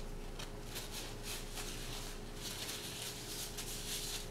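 Quiet room tone: a steady low electrical hum, with soft rustling of a paper napkin being handled that comes and goes.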